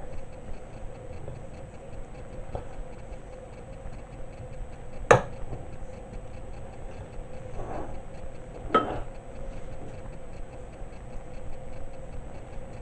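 A clock ticking steadily, with a few sharp knocks of a utensil against a glass bowl while cream is spread in it; the loudest knock comes about five seconds in and another near nine seconds.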